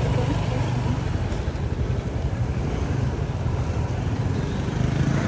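Motor scooter engines running, a steady low drone under a general haze of background noise.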